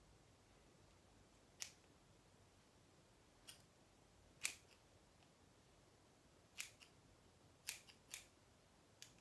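Hair-cutting scissors snipping through strands of curly hair: about eight short, sharp snips at irregular intervals, the loudest a little before halfway, with quiet room tone between.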